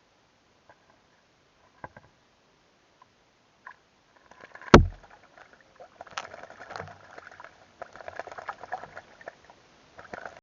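A bird bathing in a water trough: one sharp knock a little under halfway through, then several seconds of irregular splashing and fluttering in the water.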